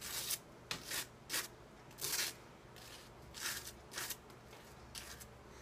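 Table knife scraping butter across a slice of toast in a series of short, irregular strokes.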